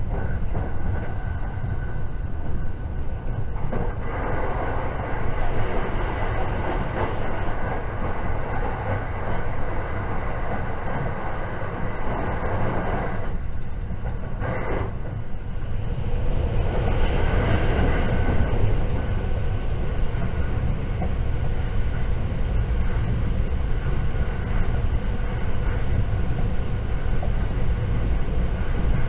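Inside a JR 681 series limited express electric train running at speed: a steady low rumble and rushing of wheels on rails. The rushing part drops away briefly twice about halfway through, then comes back stronger.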